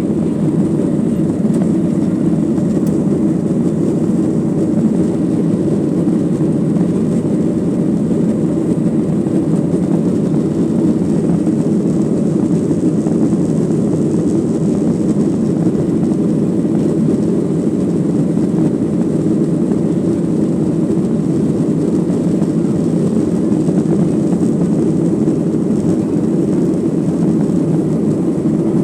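Steady drone of a Boeing 737-900ER's CFM56-7B turbofans and rushing airflow heard inside the passenger cabin from a rear seat, deep and even with no change in pitch or loudness.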